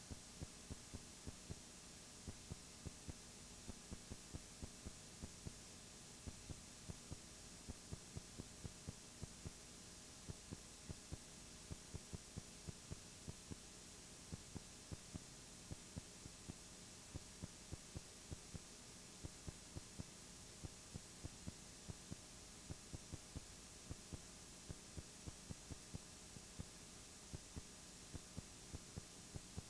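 Near silence: a steady low electrical hum and hiss with faint, irregular clicks about two or three times a second, with no sound of the event itself.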